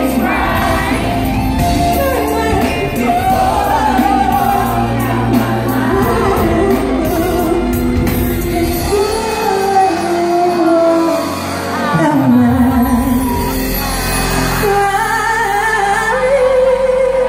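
A woman singing a slow R&B ballad live over band accompaniment, in a large hall.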